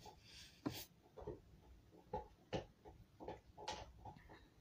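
Faint rustling and rubbing of fleece fabric and string being handled while knotting, with a few soft clicks and tugs at irregular intervals.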